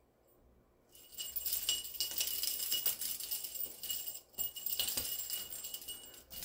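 A small jingle bell on a handheld cat toy shaken and jingling, starting about a second in, in a quick, irregular run of tinkles and rattles with a brief pause partway through.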